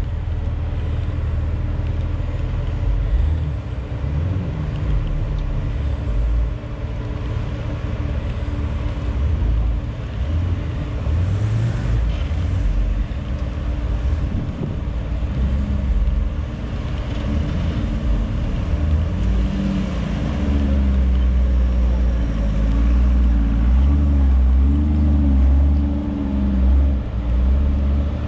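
Jeep Wrangler Rubicon's engine running at low revs as the 4x4 crawls over logs in a sand pit, the revs rising and falling with throttle. It gets louder in the second half as the Jeep comes close.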